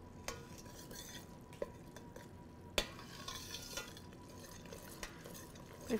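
A metal spoon stirring butter-and-sugar syrup as it boils in a stainless steel saucepan: quiet scraping, with a few light clinks of the spoon against the pan and one sharp clink about three seconds in.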